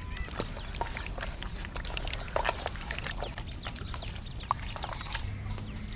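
A hand squishing raw chicken pieces through a thick yogurt marinade in a steel bowl: irregular wet squelches and clicks. Faint high chirping repeats in the background.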